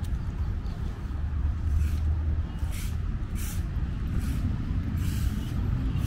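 City road traffic: a steady low rumble of passing vehicles, with a few short hisses scattered through it.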